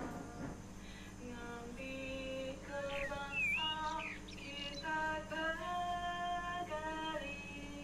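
A woman singing a slow melody in long held notes, with a few short chirps between the notes.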